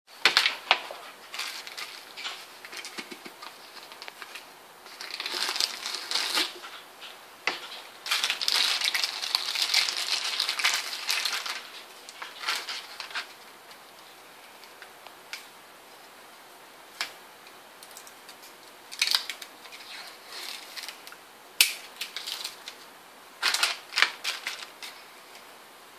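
Thin plastic packaging bags crinkling and rustling as a lantern and its parts are unwrapped from a cardboard tube, with scattered light clicks and taps of items set down on a table. The crinkling comes in irregular bursts, with the longest, densest stretch about a third of the way in.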